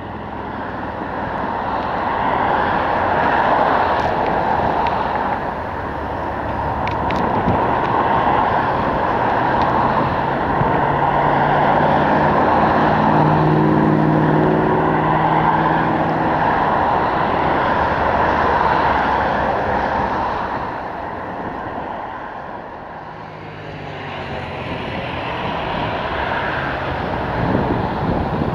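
Fixed-wing aircraft engines running loud on or near the runway, a long sustained noise that swells, holds, then dies down for a few seconds near the end before rising again. Steady engine tones come through partway.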